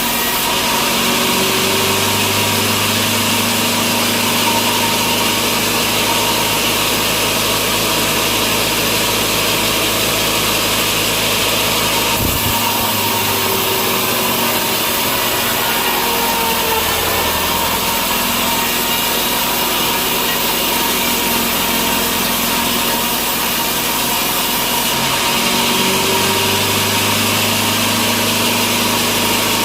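A sawmill saw cutting through a large log into slabs, with the machine's engine or motor running steadily underneath.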